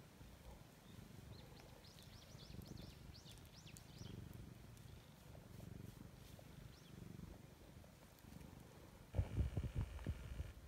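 Domestic cat purring contentedly as its back is stroked. The purr is a low rumble that swells and eases with each breath. About nine seconds in, louder rustling and knocks take over.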